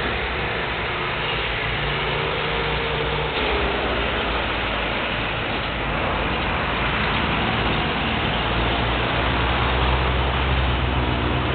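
Darjeeling toy train running: a steady rumble with a low engine hum.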